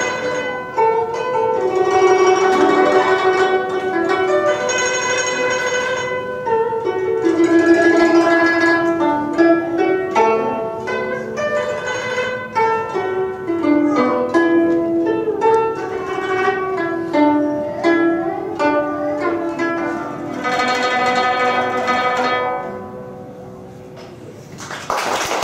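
Guzheng (Chinese zither) playing a melody of plucked notes, dying away near the end, with applause breaking in just as it stops.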